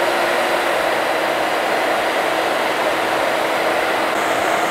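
Hair dryer running steadily, blowing through a plastic spiral wave-making diffuser attachment: an even rush of air with a faint steady tone in it.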